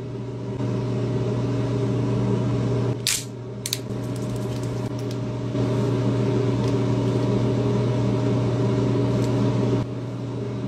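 A steady low hum with several overtones, its level stepping up and down a few times. A brief hiss and a couple of clicks come about three seconds in.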